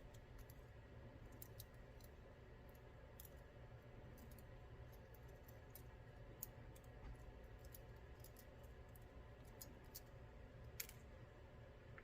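Faint, scattered small clicks of metal tools on small lock parts as a spring is worked out of a Mul-T-Lock MT5+ cylinder, with a couple of sharper clicks past the middle and near the end.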